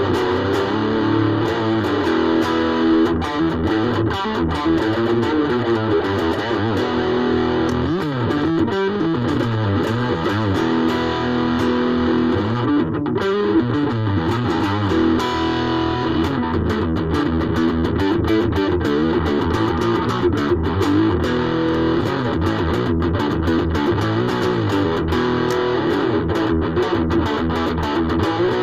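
Ibanez AXS42 electric guitar, rewired with solid-core vintage wire, played continuously through an amplifier with some distortion, running through a stream of notes and chords.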